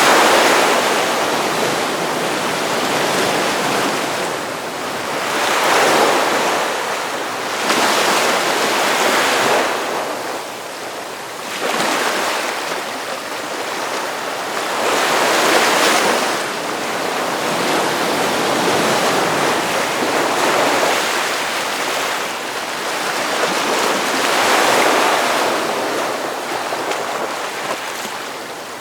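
Ocean surf breaking on a beach: a continuous hiss of water with waves swelling and crashing every few seconds.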